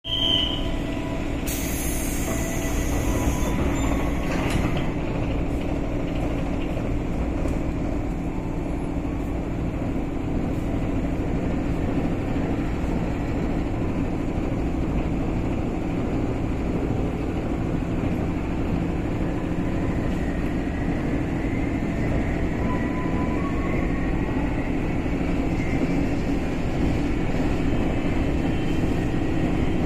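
Steady running noise inside a chopper-controlled JR 203 series electric commuter train motor car: a continuous rumble of wheels and traction motors on the track. A brief high hiss comes about two seconds in.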